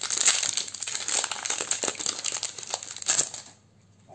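Wrapper of a Magic: The Gathering booster pack crinkling as it is handled, a dense crackle that stops about three and a half seconds in.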